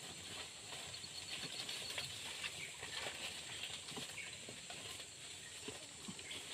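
Outdoor forest ambience: faint, irregular small clicks and rustles over a steady high hiss.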